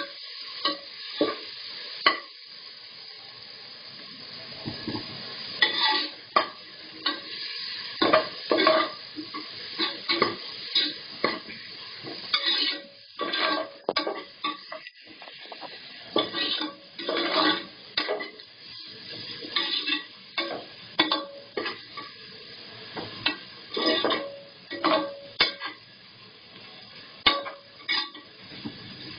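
Sliced onions and green chillies sizzling in hot oil and ghee in an aluminium pressure cooker, with a spatula scraping and knocking against the pot in many irregular strokes as they are sautéed until brownish.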